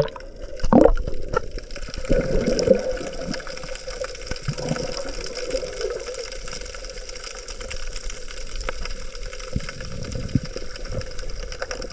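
Water sloshing and gurgling around a camera taken underwater at the start of a dive, with a louder splash about a second in and a faint steady hum beneath.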